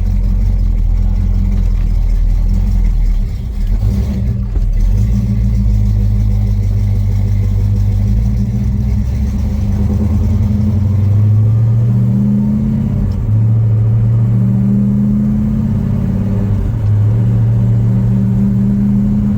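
Rebuilt Pontiac 400 V8 in a 1970 GTO Judge running under way while still being broken in. The engine pitch climbs and drops back a few times in the second half, and there is a brief lull about three seconds in.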